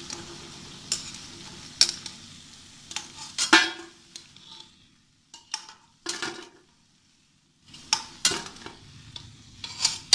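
Besan pakoras sizzling in hot oil in a steel kadhai while a metal ladle scrapes and clicks against the pan, lifting them out. The sizzling stops about four seconds in, and after that come scattered clinks of the ladle on the kadhai and a steel plate.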